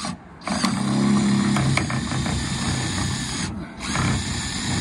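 Handheld power drill driving a screw to fasten a solar panel bracket to the bus roof, running for about three seconds, stopping briefly, then running again in a shorter burst. The screw is hitting the steel frame rail under the roof.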